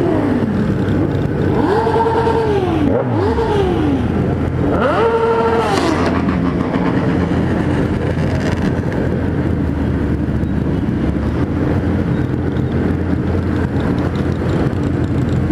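Kawasaki Z1000's inline-four engine at low speed among a large group of motorcycles, revved up and back down several times in the first six seconds, then running steadily.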